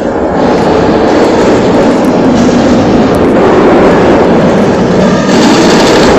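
Loud, steady rumble and rush of a roller coaster train running along its track, with wind buffeting the microphone.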